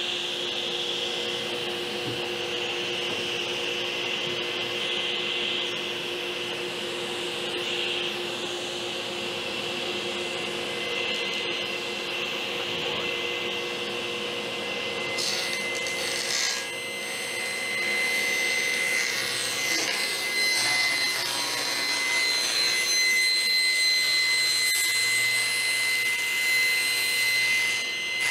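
A table saw running steadily while a large sheet of quarter-inch Baltic birch plywood slides across its table. About halfway through the sheet is fed into the blade: the sound gets louder and a high whine joins the steady hum.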